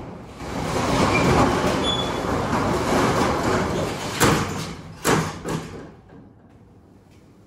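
Metal roll-up storage unit door being raised, its slats rattling loudly as it rolls up. Two sharp clanks come about four and five seconds in, and the rattle dies away at about six seconds.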